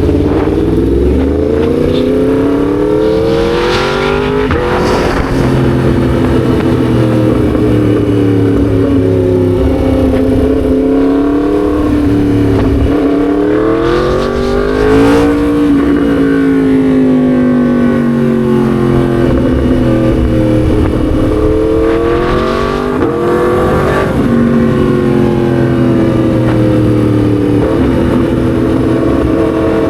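Yamaha MT-10 SP's crossplane inline-four engine being ridden, its pitch rising and falling with the throttle. The pitch breaks off and drops sharply three times, about four, fifteen and twenty-three seconds in.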